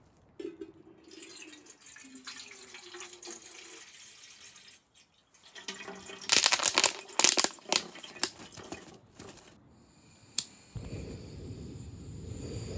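Bottled water pouring into an empty stainless steel kettle. Then a run of loud clatters and knocks, a single sharp click about ten seconds in, and a portable gas stove's burner lighting and running with a steady low rush.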